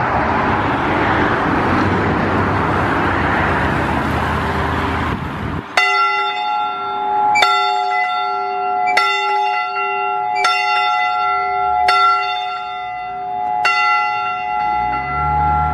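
Church bell tolling. After about five seconds of steady rushing noise with the bell's hum lingering under it, the bell sounds six strokes about a second and a half apart, each ringing on into the next.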